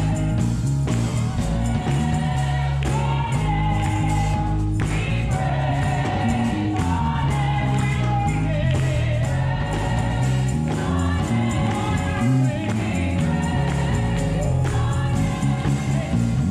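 Gospel song with a choir singing over a band, and an electric bass playing a prominent, stepping bass line along with it.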